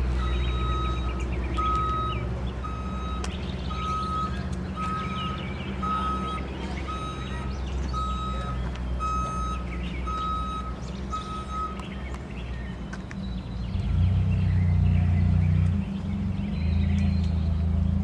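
Truck reversing alarm beeping about once a second over a running truck engine. The beeping stops about 12 seconds in, and the engine then grows louder.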